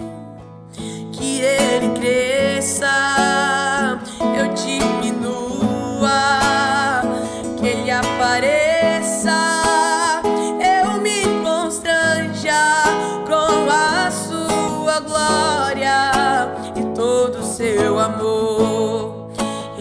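A young man's voice singing a Portuguese worship song, accompanied by an acoustic guitar. The voice comes in about a second in, after a brief guitar-only moment.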